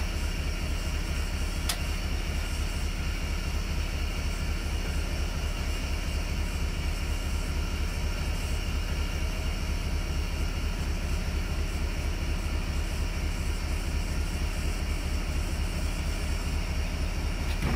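A steady low mechanical drone of a running engine or machine, pulsing fast and evenly. A single short, sharp scratch sounds about two seconds in as a match is struck to light the kindling in the steam locomotive's firebox.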